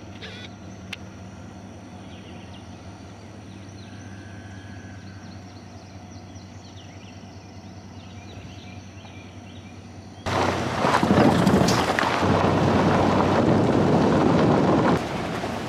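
A steady low hum with faint bird chirps, then a sudden change about ten seconds in to loud rumbling and rattling vehicle noise.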